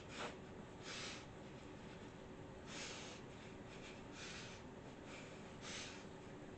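A person's short, noisy breaths, five of them about a second and a half apart, over a faint steady room hum.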